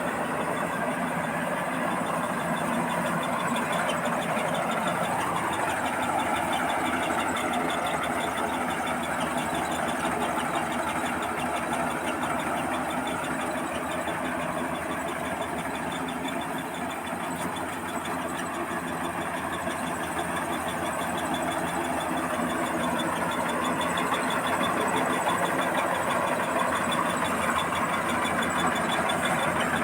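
Rice combine harvester's engine and machinery running steadily, a little quieter about halfway through and louder again near the end.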